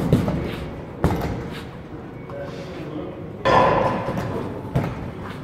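Punches landing on a hanging heavy punching bag: two quick thuds at the start and another about a second in. About three and a half seconds in comes a louder clattering knock with a brief ringing note.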